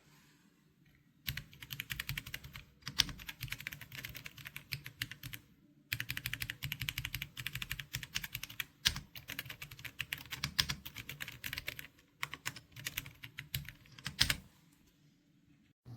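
Fast typing on an RK Royal Kludge M75 mechanical keyboard with red linear switches, a quick run of key clicks. It starts about a second in, breaks off briefly around six and twelve seconds in, and stops a little before the end.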